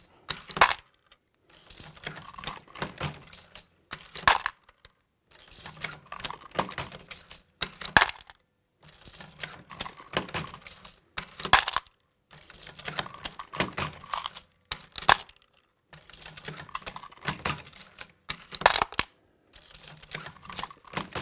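Lee Loadmaster progressive reloading press being cycled steadily, case fed, loading 9mm. Each stroke of the handle brings a stretch of rattling metallic clicks of brass and mechanism and ends in one sharp click, about once every three and a half seconds, six strokes in all.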